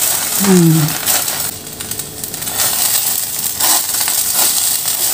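Egg-and-flour crepe batter sizzling in a frying pan while two silicone spatulas fold it over a minced beef and potato filling, with scrapes and light taps of the spatulas against the pan.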